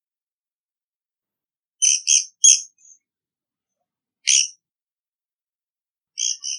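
Japanese pygmy woodpecker giving short high calls: three in quick succession about two seconds in, a single call a couple of seconds later, and a pair near the end.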